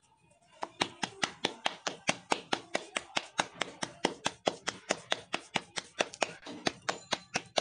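Wet palms patting a ball of maize-flour dough flat to shape a makki ki roti by hand: a quick, even run of slaps, about five or six a second, starting about half a second in.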